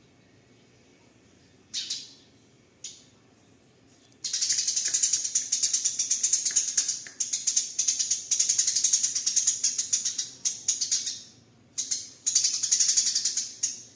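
Eurasian tree sparrow giving its aggressive fighting chatter: two single chirps, then from about four seconds in long runs of rapid, high-pitched chattering broken by short pauses.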